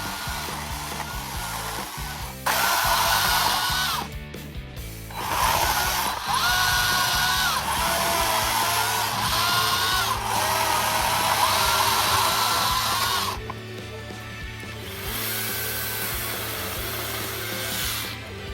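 Skil 40-volt battery chainsaw cutting in three bursts: a short one about two and a half seconds in, a long one of about eight seconds, and another near the end, its whine shifting in pitch as the chain meets the wood. Background music runs underneath.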